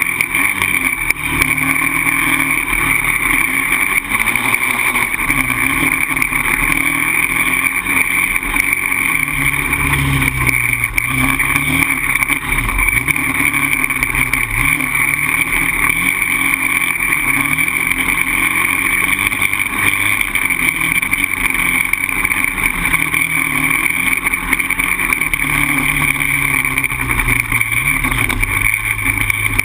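Polaris Outlaw 525 quad's single-cylinder four-stroke engine running under way, its pitch rising and falling with the throttle, with a drop in pitch near the end.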